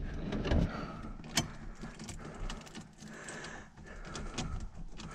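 Quiet handling noises at the car's ignition, a key jingling, with one sharp click about a second and a half in; the engine is not yet running.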